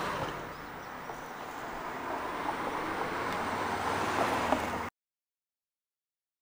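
Steady street and traffic noise as a car rolls slowly up to the curb, growing a little louder as it nears. It cuts off abruptly to dead silence about five seconds in.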